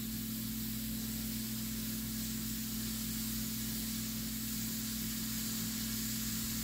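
Stovetop pressure canner at pressure, hissing steadily as steam seeps past its barely jiggling weighted regulator, over a steady low hum; the weight has not yet broken into full rocking.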